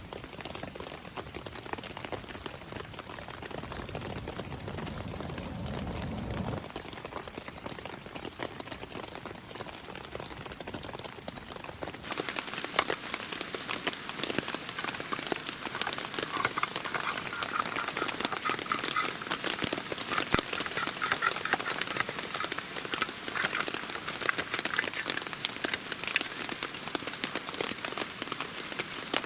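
Steady rain pattering on a surface, a dense scatter of small drop ticks. It turns brighter and busier about twelve seconds in.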